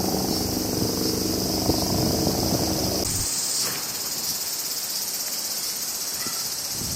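A steady, high-pitched chorus of crickets. For about the first three seconds a low engine hum runs underneath it, then cuts off suddenly, leaving the insects alone.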